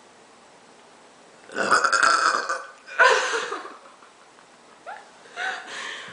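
A person burping loudly on purpose after gulping soda: a long burp about a second and a half in, a shorter one right after it, then softer sounds near the end.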